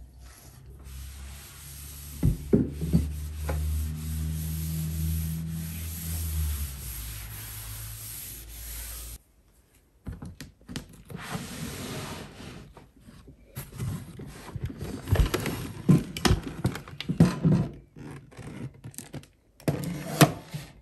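Steady rubbing for about nine seconds that stops suddenly. After it come scattered knocks, rustles and scrapes as a fabric storage bin is slid out of a wooden cube shelf.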